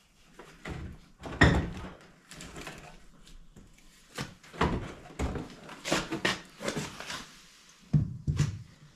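Irregular metal clunks and knocks as the Honda Big Red 300 quad's engine is worked loose and lifted out of its frame.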